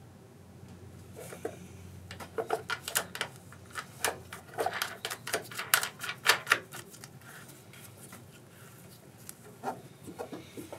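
Clicks and light knocks of tools and parts being handled, in a quick irregular run from about a second in to about seven seconds in, then a few more near the end.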